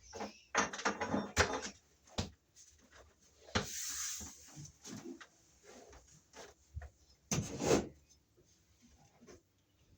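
Irregular knocks, clicks and rustling of hand tools and parts being handled, with a brief scraping hiss about four seconds in and a louder knock at about seven and a half seconds.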